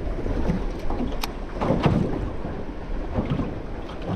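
Wind buffeting the microphone and water lapping against a small aluminium boat (a tinny), with two short knocks, about a second and about two seconds in.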